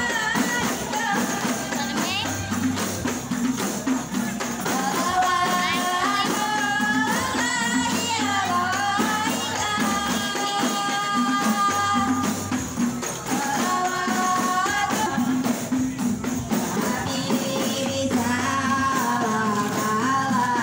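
Music: a sung melody over a jingling frame-drum (rebana) rhythm.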